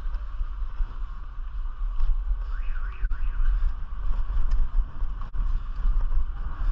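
Wind rumbling steadily on a bicycle-mounted camera's microphone while riding, over the noise of street traffic.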